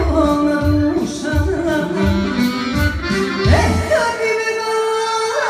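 Band playing Ex-Yu folk (narodna) music: an accordion-led instrumental passage over a steady bass-and-drum beat. The beat drops out about four seconds in, leaving held notes and sliding pitches.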